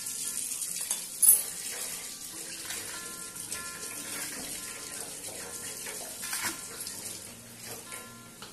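Tap water running into a sink while dishes are washed, a steady hiss, with one sharp clink about a second in.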